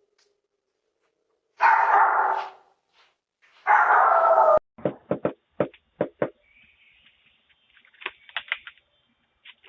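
A dog barking: two long, loud barks about two seconds apart, then a quick run of about six short, sharp sounds and fainter noises near the end.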